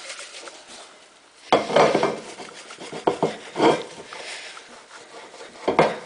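Glass microwave turntable plate being wiped with a paper towel and handled, with a few knocks of the glass: about a second and a half in, twice around three to four seconds, and near the end.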